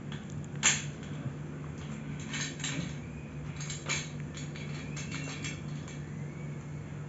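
Clicks and knocks of plastic casters being pushed into the sockets of a chrome five-star office chair base as the base is handled, the sharpest knock coming under a second in.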